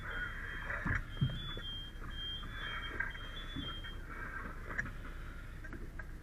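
A smoke alarm beeping, a thin high tone that sounds and stops in short pieces, over a murky rumble of activity, with a few sharp knocks, the loudest about a second in.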